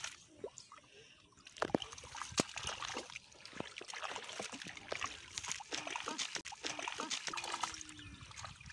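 Shallow muddy paddy-field water splashing and trickling as hands grope through it and feet wade, a quick run of small splashes and drips that picks up after a quieter first second or so.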